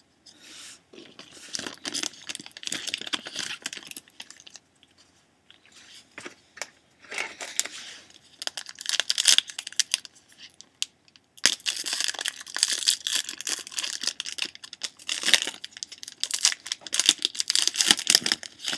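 Foil wrappers of hockey card packs being torn open and crinkled by hand. It comes in three bouts with short pauses between them, and the last bout is the longest and loudest.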